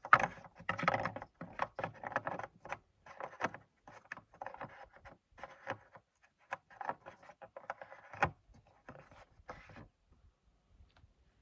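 Handling noise from the plastic oil funnel being pulled out of the engine's oil fill: a run of irregular clicks, taps and rustles with one sharper knock about eight seconds in.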